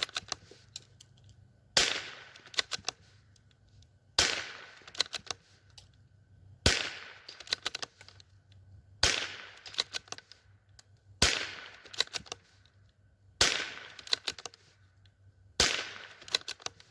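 Howa M1100 semi-automatic .22 LR rifle firing standard-velocity rounds slowly, seven shots a little over two seconds apart. Each shot is followed by a quick rattle of small clicks. The rifle cycles every round from a 9-round magazine without a stoppage.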